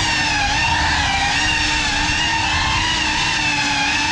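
GEPRC Cinelog 35 ducted cinewhoop drone's brushless motors and propellers whining in flight. The pitch wavers slightly as the throttle shifts.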